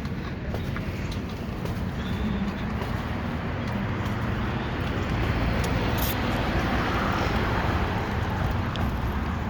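Street traffic: a steady rumble of road vehicles that grows a little louder about halfway through, as a vehicle passes close by.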